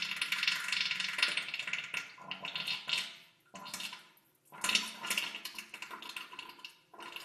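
Diarrhoea sound effect: wet, crackling bursts of liquid bowel movement in four stretches with short pauses between, the first long, the last brief.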